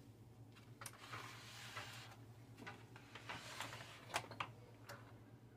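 Kobalt mower battery charger's cooling fan running faintly with a steady low hum, irregular light ticks and soft scraping: the grinding of a fan that is dirty or rubbing.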